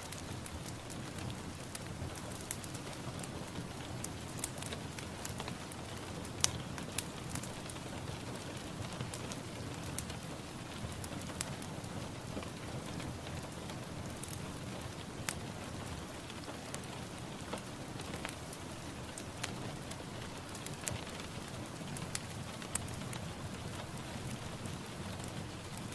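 Steady rainfall, with scattered sharp taps of individual drops landing on a hard surface.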